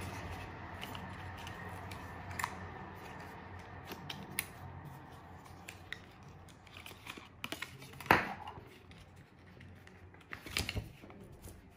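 Hands handling a MagSafe charger and its paper-and-cardboard packaging: faint rustling with scattered light clicks and taps, the loudest a sharp click about eight seconds in and a few more near the end.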